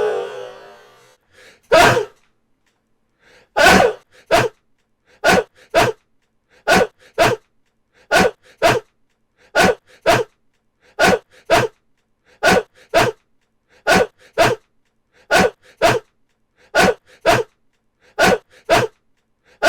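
A sneeze repeated over and over at an even pace, about once every one and a half seconds. Each sneeze is a loud burst followed half a second later by a shorter one.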